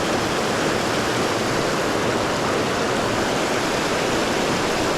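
Creek water rushing steadily, an even unbroken wash of flowing current.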